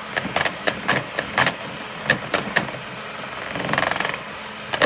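Electric hand mixer running, its beaters whipping soap and water into foam in a plastic bowl: a steady motor hum with many irregular sharp clicks, and a brief harsher stretch about four seconds in.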